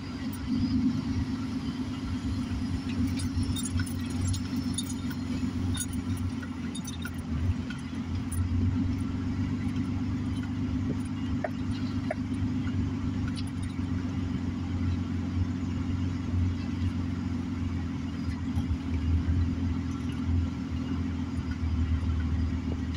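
Car driving slowly, heard from inside the cabin: a steady low engine and road hum, with a few faint clicks and rattles.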